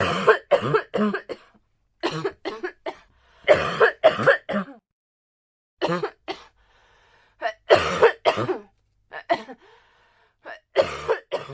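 A person coughing in a series of fits: clusters of short, harsh coughs, two to four at a time, with brief pauses between them. It sounds like a sudden coughing attack.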